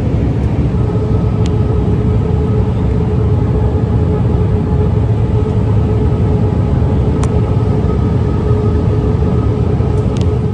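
Airliner cabin noise in flight: a loud, steady rumble of engines and airflow with a steady hum running through it.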